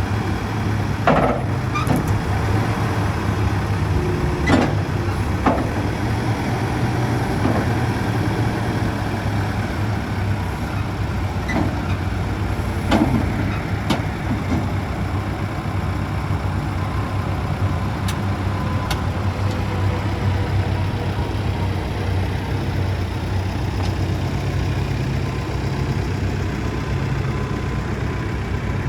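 2019 Case 580SN backhoe's diesel engine idling steadily, with a few short knocks or clanks over the top, mostly in the first half.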